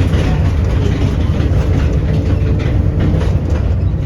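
Volvo B7RLE bus's six-cylinder diesel engine running steadily under way, a loud low rumble. The uploader says this engine has bad injectors.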